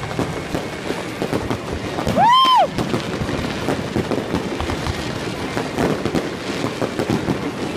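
Fireworks display: continuous crackling and popping from bursting shells. About two seconds in, a loud high whistle rises and falls once.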